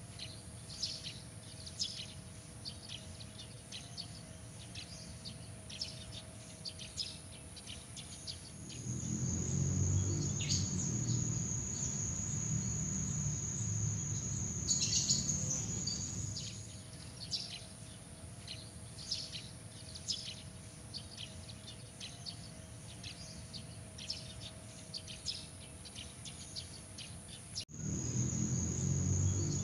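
Night insects trilling, a steady high-pitched trill with many short chirps over it. A low rumble comes in from about 9 to 16 seconds. The sound cuts out for an instant near the end and resumes with the rumble.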